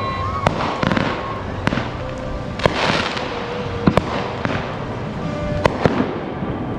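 Fireworks going off: about seven sharp bangs and pops at irregular intervals over a steady hiss.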